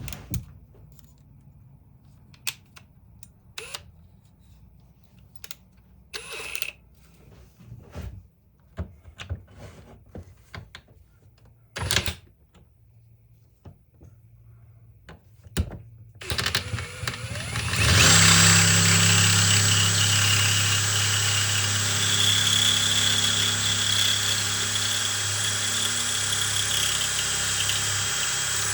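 Scattered clicks and knocks of handling, then a power drill spins up about sixteen seconds in and runs steadily and loudly with a high whine for about ten seconds before stopping, likely driving or drilling out a stubborn screw in the tool's housing.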